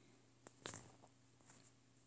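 Near silence: room tone with a faint steady low hum and a few small faint clicks, the clearest about half a second in.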